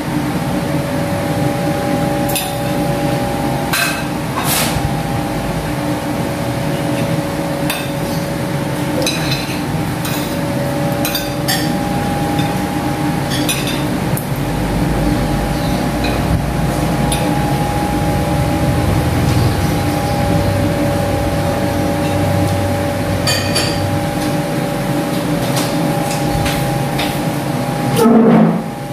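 Spoon and fork clinking and scraping against plates and a bowl during a meal: about a dozen sharp clicks scattered through, over a steady mechanical hum carrying two held tones. A brief louder sound comes near the end.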